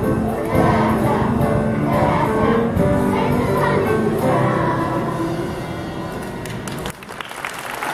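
Children's choir singing with accompaniment, the final held notes fading and the song ending about seven seconds in. Scattered clapping starts just after.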